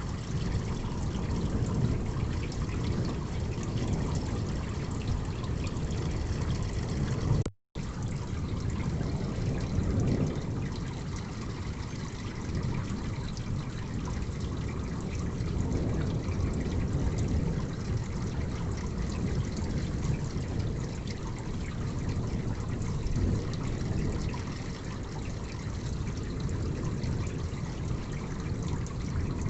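Steady heavy rain with water trickling and dripping. It cuts to silence for a split second about seven seconds in.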